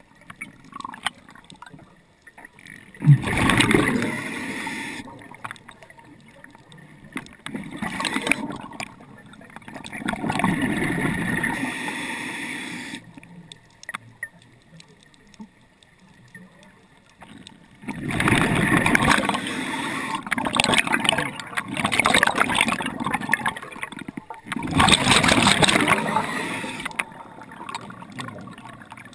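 Underwater breathing of a scuba diver: several bursts of bubbling from the regulator's exhaust, each lasting a few seconds, with quieter gaps between them.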